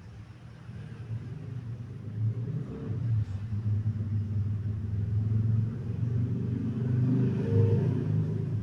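Motorcycle engine running with a low rumble, growing louder over the first few seconds and then wavering up and down in level.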